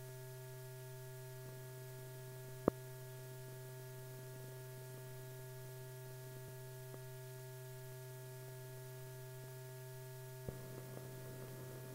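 Steady electrical hum with several constant tones, the background of the old film's soundtrack, broken by one sharp click about two and a half seconds in and a faint tick near the end.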